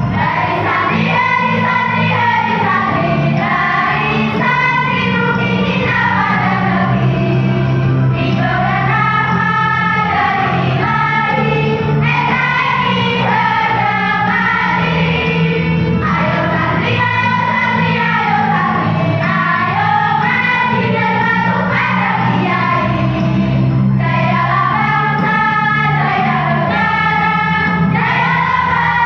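School choir singing a melody in phrases of a few seconds each, over a steady low accompaniment.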